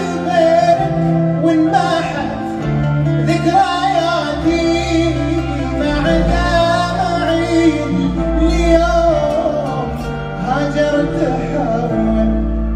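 A man singing an Arabic song live with grand piano accompaniment, his voice bending and ornamenting over held low notes, recorded on a phone from the audience of a concert.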